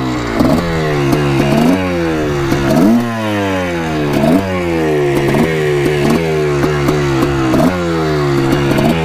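1987 Yamaha YZ490's single-cylinder two-stroke engine running just after a hard kick start, blipped on the throttle about once a second. Each rev rises quickly and sinks back slowly toward idle.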